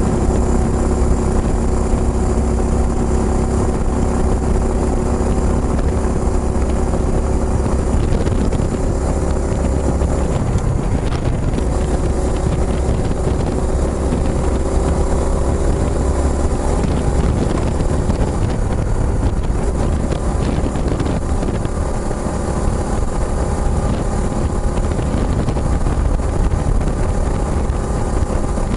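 Kawasaki Estrella single-cylinder four-stroke motorcycle running through its Yamato aftermarket muffler while riding, the engine note drifting slightly in pitch with speed, with wind buffeting the microphone.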